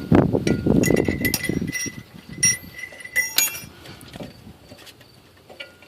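Metal clinks and clatter from handling drum-brake parts and tools, with several short ringing clinks in the first few seconds.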